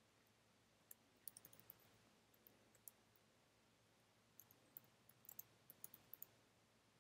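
Faint computer keyboard keystrokes: scattered sharp clicks in short runs, over quiet room tone.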